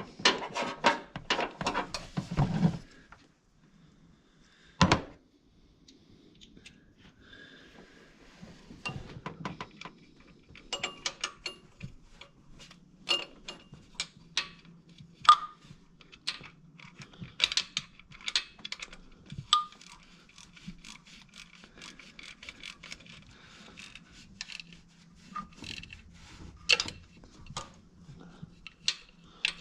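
Hand ratchet wrench clicking in quick runs, with scattered clinks and taps of metal tools against the engine. The densest run of clicks comes in the first couple of seconds; after that come single clicks and short ringing clinks.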